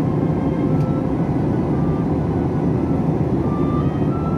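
Steady cabin noise inside an Airbus A321 airliner in cruise: an even, low rumble of engine and airflow noise.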